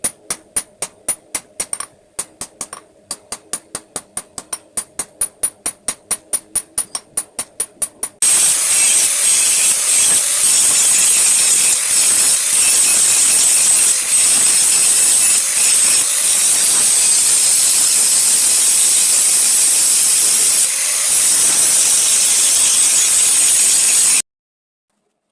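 A hammer striking metal in rapid, even blows, about four a second, each ringing. About eight seconds in, a loud steady hiss takes over and then cuts off suddenly near the end.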